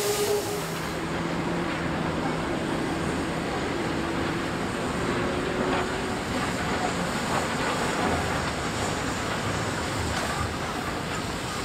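German Class 52 steam locomotive standing with steam up, giving a steady rushing hiss, with a faint low hum in the first half.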